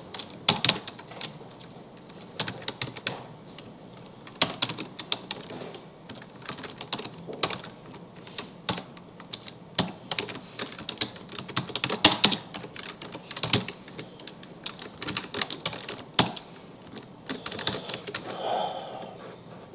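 Computer keyboard typing: irregular runs of keystroke clicks with short pauses between them, as a line of code is typed out.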